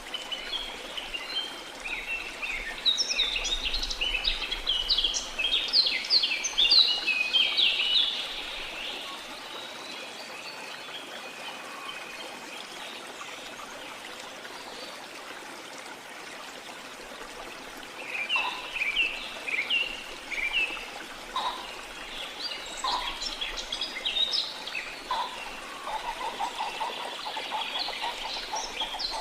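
Steady rush of falling water with birds chirping and singing over it in two busy spells, the first in the opening seconds and the second from about two-thirds of the way through, with only the water between them.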